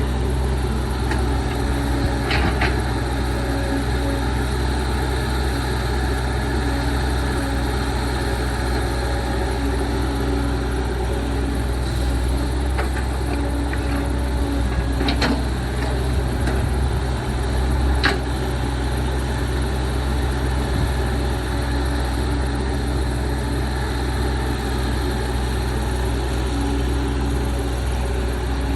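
Heavy diesel engine running steadily at a constant pitch, with a few short sharp knocks scattered through it.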